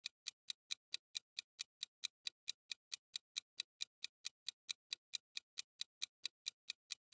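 Clock-ticking sound effect marking a quiz countdown timer: an even run of sharp ticks, about four a second.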